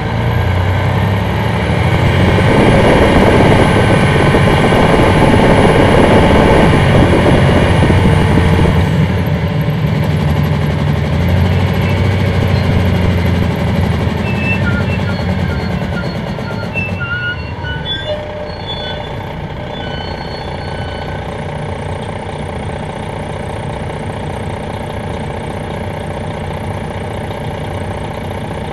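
Detroit Diesel Series 60 straight-six diesel of an MCI D4000 coach, heard from the rear seats, running loud under hard acceleration for several seconds. It then eases off and drops to a steady, quieter running about seventeen seconds in.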